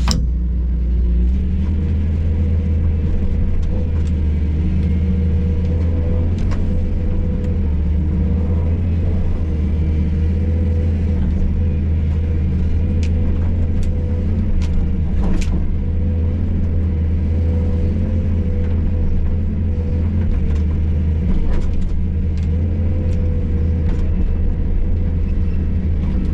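Hydraulic excavator's diesel engine running steadily, heard from inside the cab, with a few short sharp knocks and clicks.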